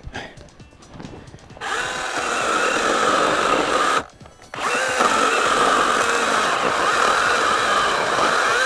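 Makita MUC101D 18V cordless handy chainsaw cutting a branch into firewood lengths: the motor and chain start whining about a second and a half in, stop briefly around four seconds, then run again through another cut until near the end. The whine dips slightly in pitch as the chain bites into the wood.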